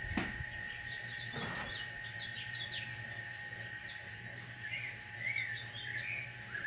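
Small birds chirping in the background, many short quick chirps and little rising-and-falling calls, over a steady high tone. Two brief louder sounds come in the first second and a half.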